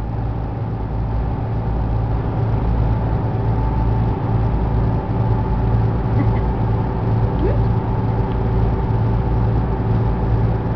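A ship's engine running steadily, a deep, even drone that does not change.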